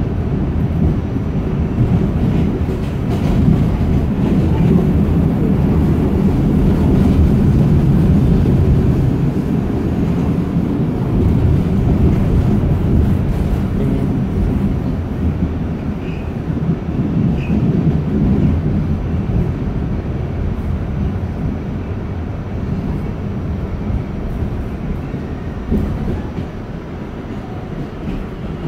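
R46 subway train running along the track, heard from inside the car: a steady, loud low rumble of wheels and running gear that eases off slightly toward the end.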